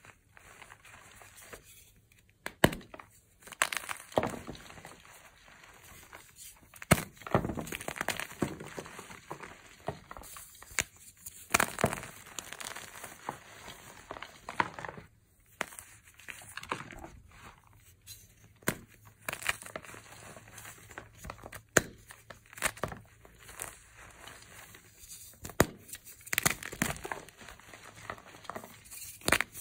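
Blocks of gym chalk (magnesium carbonate) crushed and crumbled between the fingers: irregular sharp cracks as pieces snap off, with soft powdery crunching and rustling in between.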